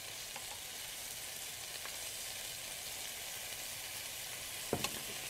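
Bite-size chicken breast pieces sizzling steadily in oil in a nonstick skillet as they brown, with a couple of sharp clicks near the end from the metal tongs against the pan.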